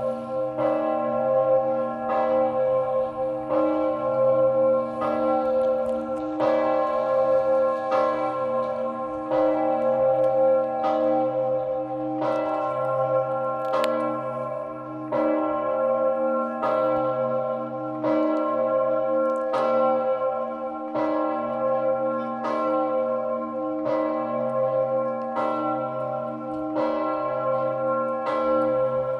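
Augustin, the bell of the White Tower in Hradec Králové and the third-largest bell in the Czech Republic, ringing with a regular stroke about every one and a half seconds. Each stroke rings on over a deep steady hum.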